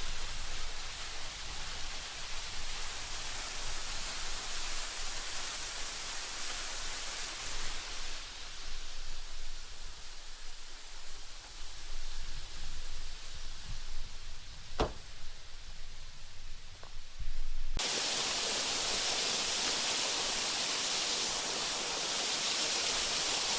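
Steady rushing of a river, with an uneven low rumble underneath and a single sharp click about 15 seconds in. Near the end the sound switches abruptly to a louder, even rush of water.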